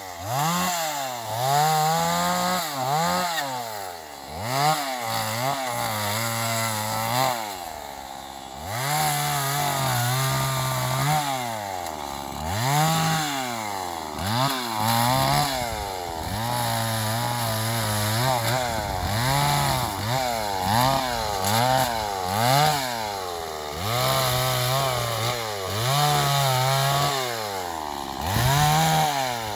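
Stihl two-stroke chainsaw cutting brush. The engine revs up and down over and over, every second or two, holding steady for short stretches in between.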